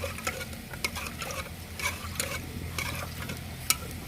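A spoon stirring and scraping in a pan of dried fish frying in oil, with irregular clicks of the spoon against the pan over a faint sizzle.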